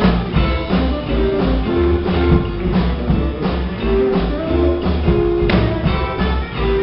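Live band playing an upbeat number with a steady beat: electric guitar over upright bass and drum kit.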